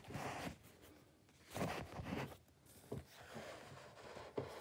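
Faint rustling of paper and a hardback book being handled and shifted, in several short scrapes and brushes.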